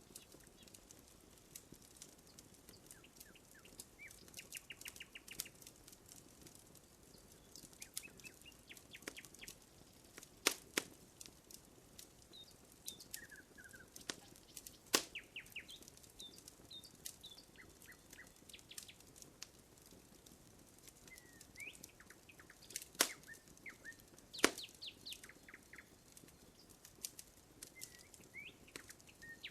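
Wood crackling in a campfire, with scattered sharp pops, a few of them much louder than the rest. Birds sing in the background with short chirps and quick trills.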